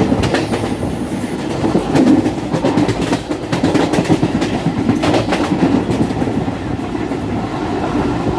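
Moving passenger train heard from inside the coach: a steady rumble of the wheels on the rails, with a run of quick clicks and clatter over the rail joints in the middle.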